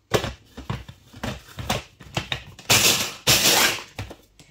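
Walnuts being chopped in a blender, ground to coarse crumbs rather than fine. A scatter of clicks and knocks is followed by two short loud grinding pulses about three seconds in.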